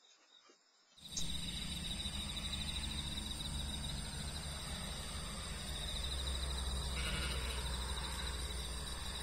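Insects trilling steadily in a high, fast-pulsing chorus over a low rumble, starting about a second in. A brief, higher call cuts in about seven seconds in.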